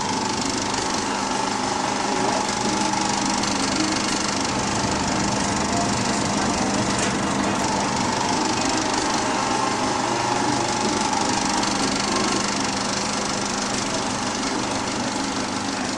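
A 1920s-built cinema film projector, converted for sound, running steadily: a fast, even mechanical clatter with a steady hum underneath.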